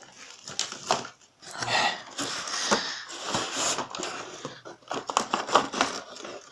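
Cardboard packaging rustling and scraping as a toy is handled in its box, with a quick run of sharp clicks from scissors working at a plastic zip tie about five seconds in.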